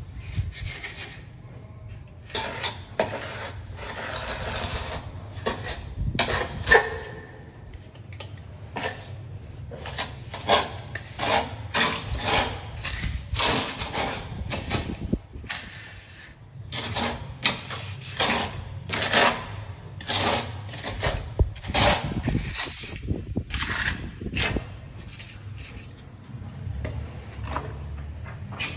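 Hand tools working on masonry: repeated short scrapes and knocks at an irregular pace, over a steady low hum.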